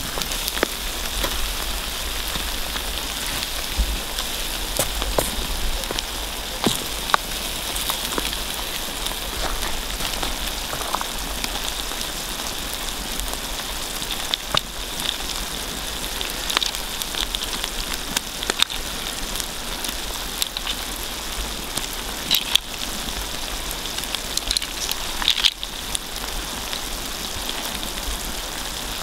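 Paella pan of seafood rice simmering and sizzling over an open wood fire, with the fire crackling: a steady hiss broken by scattered sharp pops.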